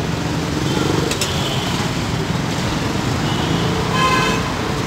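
Steady low rumble of street traffic noise, with a sharp clink about a second in and a short pitched sound a little before the end.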